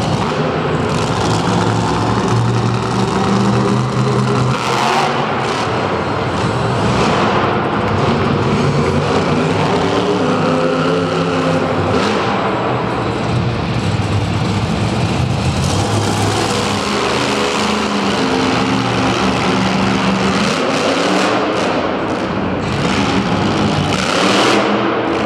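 Monster truck engines revving hard, the pitch rising and falling again and again through a wheelie run.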